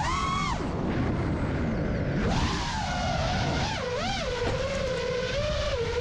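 5-inch FPV quadcopter's brushless motors and propellers whining in flight, the pitch jumping and swooping with sharp throttle punches, then holding a steady pitch in the second half.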